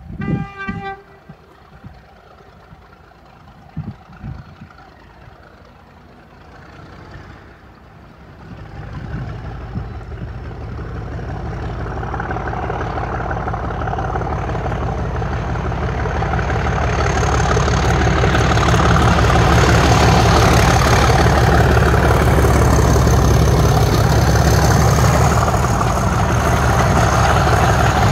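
Class 37 diesel locomotive with its English Electric V12 engine, working as it approaches and passes. A short horn blast comes right at the start. The engine's rumble grows steadily louder from about eight seconds in, and a high steady whistle joins it about halfway through.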